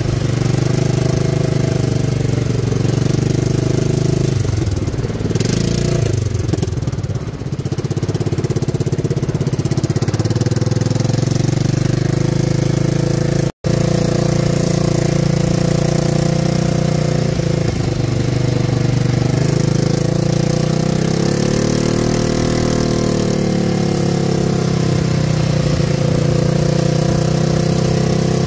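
ATV engine running under way on a dirt trail, with a steady hiss over it. The engine note drops about five seconds in and rises and falls again past the twenty-second mark. The sound cuts out for an instant about halfway through.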